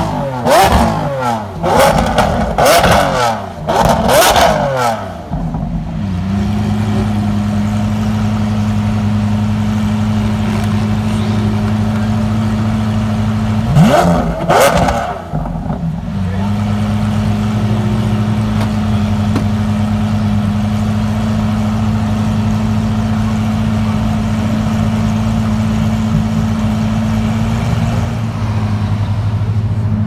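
Lamborghini Aventador SVJ's V12 with a Ryft aftermarket exhaust, loud: several quick free revs in the first five seconds, settling to a steady deep idle. One more short rev comes about halfway through, then it idles again.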